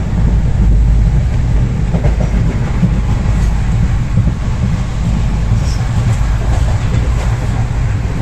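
Indian Railways passenger coach running at speed, heard from inside: a steady low rumble of wheels on track with a few faint clicks.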